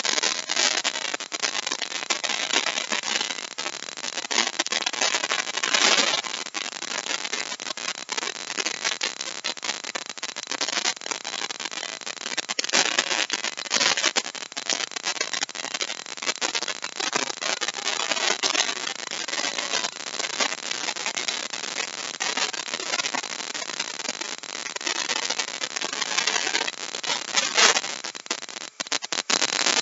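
Handheld router running and cutting a deep mortise into a wooden chair part, a loud rough whine with uneven crackle as the bit chews through the wood. Near the end it drops away briefly as the router comes out of the cut.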